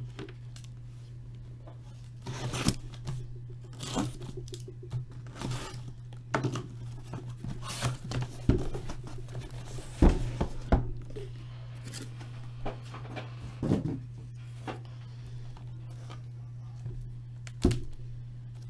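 Plastic shrink-wrap being torn and crinkled off a sealed case of hockey card boxes, in irregular rips with sharp clicks and scrapes, over a steady low hum.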